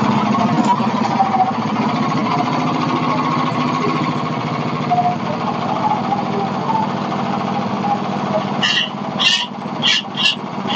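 Gas engine of a Hudson Patriot bandsaw mill running steadily while the mill is not cutting. Four short, sharp clicks near the end.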